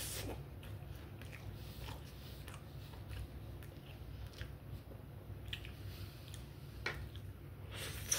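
A person chewing a mouthful of a McDonald's chicken Big Mac close to the microphone: scattered wet mouth clicks and smacks, a few louder ones near the start and near the end, over a steady low hum.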